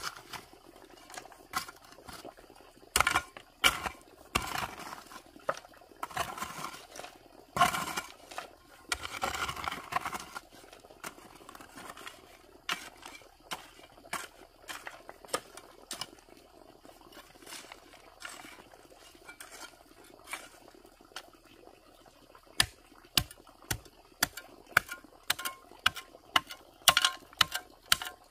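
Irregular knocks, clacks and clinks of hard objects being handled and set against each other, some with a brief ring. A short rushing, scraping noise comes about a third of the way in, and the knocks come thicker near the end.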